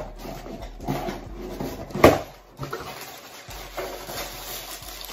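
Cardboard gift box being opened and crumpled brown packing paper rustling as it is pulled out, with a sharp crackle about two seconds in.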